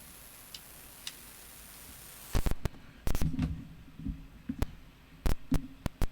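Clicks and soft thumps from a cassette player being handled, over a faint hiss. The tape's music is not heard because the output is muted. A faint high whine stops about two and a half seconds in, and the clicks and thumps start around then.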